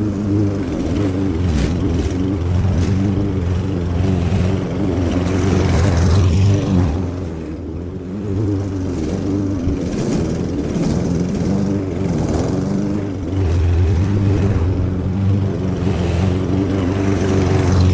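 Small gasoline engine running steadily at working speed, its pitch wavering slightly and the level dipping briefly twice as the load changes.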